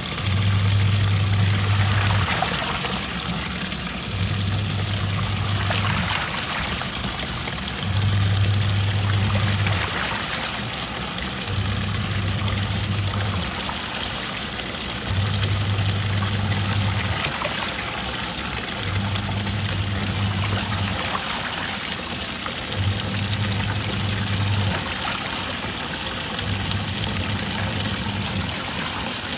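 Twin-tub washing machine on its wash cycle: the motor hums for about two seconds, pauses, and starts again, over and over, as the pulsator reverses direction, with water swishing in the tub throughout.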